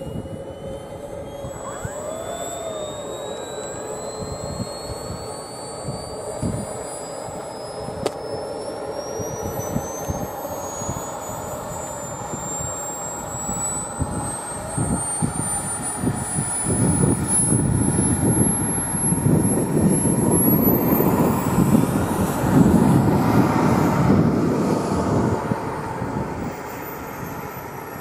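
Radio-control model E-2 Hawkeye's twin propeller motors running up for its takeoff roll and climb-out, loudest in the second half as it lifts off and passes. A thin high whine climbs steadily in pitch across the whole stretch.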